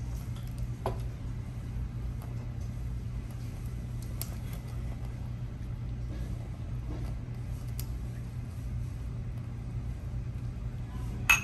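Restaurant dining-room noise: a steady low hum with a few faint clinks of dishes and cutlery, and one sharp clink near the end.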